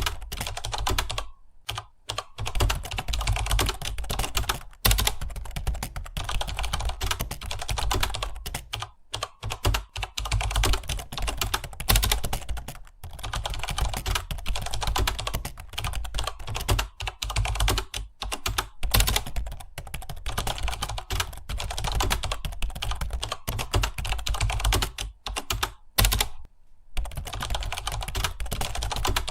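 Continuous fast typing on a computer keyboard, a rapid run of key clicks with a few short pauses.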